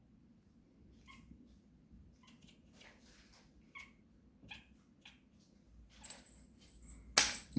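Bengal kitten making short, faint bird-like chirps while hunting, a chirp every second or so. Near the end there is a louder burst of noise.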